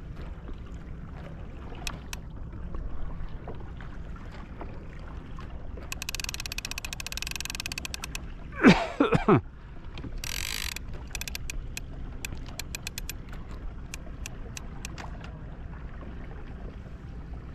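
A fishing reel's ratchet clicking in rapid bursts, with scattered single clicks between them. About halfway through, a loud sound falls steeply in pitch three times in quick succession.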